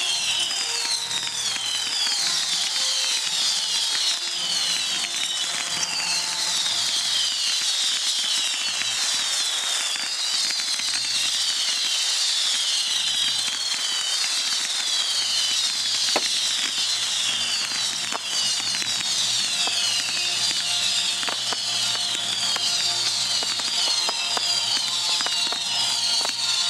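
Whistling fireworks going off in a dense barrage: many shrill whistles overlap, each sliding in pitch, with occasional sharp cracks.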